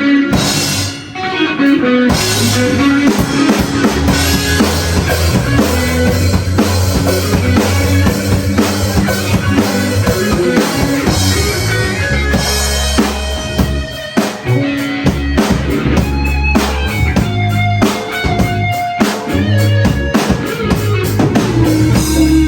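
Band playing a rock song: drum kit with kick drum and rimshots, bass guitar and electric guitar.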